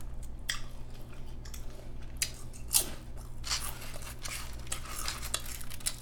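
Lay's potato chips crunching and crackling as they are picked up and chewed, in irregular crisp bursts with one louder crunch about three seconds in. A steady low hum runs underneath.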